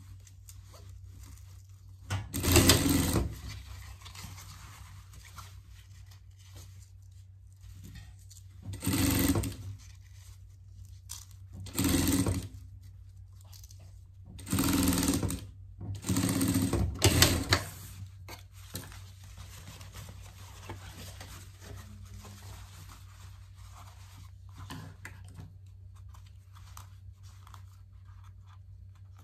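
Industrial straight-stitch sewing machine sewing in short runs, about five bursts of a second or so each with pauses between, stitching a narrow double-folded handkerchief hem on a fabric sleeve. A steady low hum continues between the runs.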